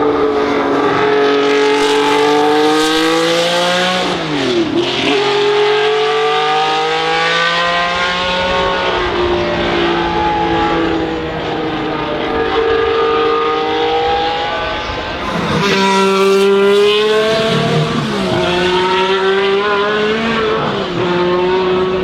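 High-revving Formula One racing car engines running hard on track. The pitch climbs slowly through a long pull, with a brief sharp drop and recovery about four and a half seconds in. A second, louder car comes through about fifteen seconds in.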